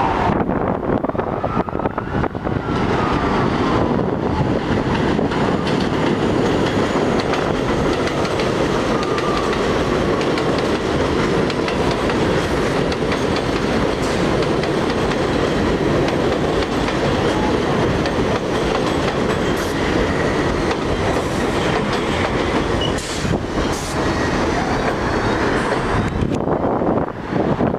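A 10-car Bombardier R62A subway train pulling into an elevated station on the steel el structure, with a steady loud rumble and wheels clacking over the rail joints as the cars pass close by. A few sharp clicks come near the end.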